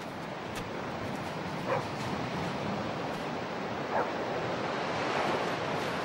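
Steady surf and wind noise on an open beach, with two short, faint dog barks, one a little under two seconds in and one about four seconds in.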